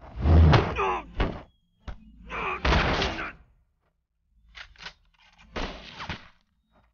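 A man's strained, wordless yell, followed by a few dull thuds and short whooshing bursts.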